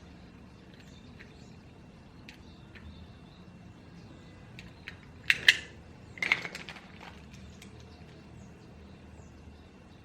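Two brief clatters of small hard objects knocking together, about a second apart, midway through, over faint scattered ticks and a low room hum.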